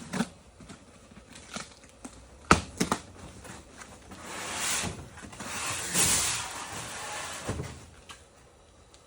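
Cardboard shipping box being opened by hand: a few sharp knocks and handling sounds, then several seconds of rustling as the flaps and packing inside are pulled open.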